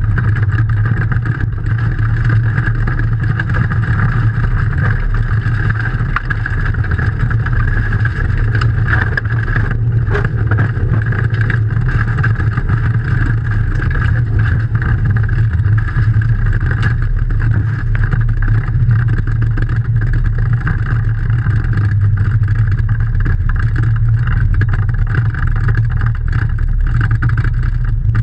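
Rally car engine running at speed, heard from inside the cabin, loud and steady.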